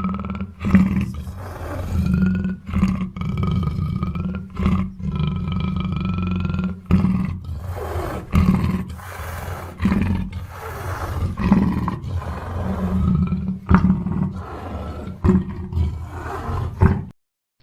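Black panther growling and roaring in a long string of calls, each broken off by a short pause.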